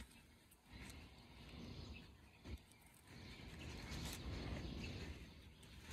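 Faint rustling of shrub leaves as a husky pushes its nose through low ground cover, over a low, uneven outdoor rumble with a couple of small clicks.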